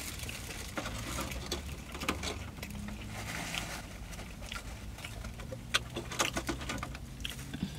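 A person chewing a mouthful of sushi roll with the lips closed: scattered small clicks and smacks of the mouth, irregularly spaced, over a steady low hum.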